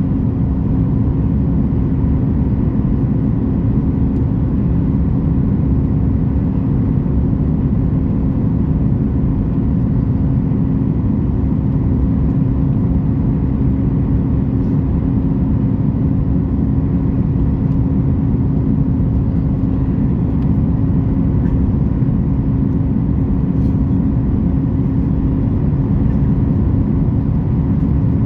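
Steady cabin drone of a Boeing 737 MAX 8's CFM LEAP-1B engines and airflow, heard from inside the passenger cabin, with a steady low hum running through it.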